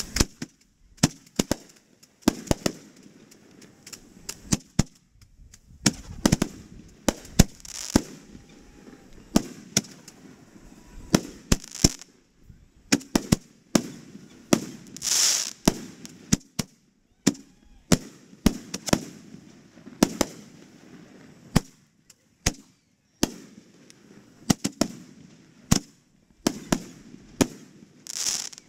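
Aerial fireworks display: shells launching and bursting in an irregular, rapid series of sharp bangs, with a few longer hisses, the longest about fifteen seconds in.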